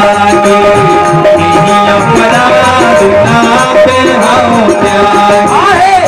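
Live devotional bhajan music: tabla playing a steady rhythm, its bass drum strokes gliding in pitch, under held harmonium notes, with a rattling hand percussion keeping time.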